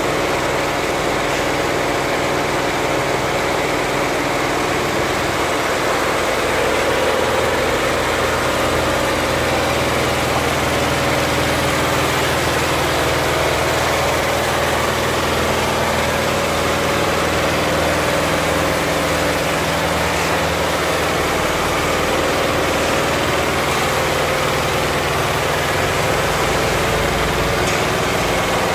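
Richpeace 20-head flat embroidery machine running at 1200 rpm, its heads stitching together in a steady, unbroken mechanical run.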